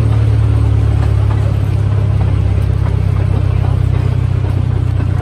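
The train's engine running steadily as it hauls the carriage slowly along the track, a low, even drone.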